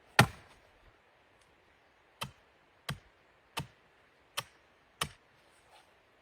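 Sharp knocks or chopping strikes: one loud strike, then five more at an even pace of about one every 0.7 seconds.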